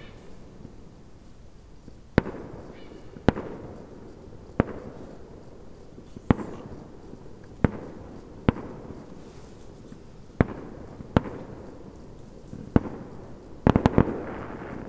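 Fireworks going off: sharp bangs every second or so, each trailing off in an echo, with a quick run of several bangs near the end.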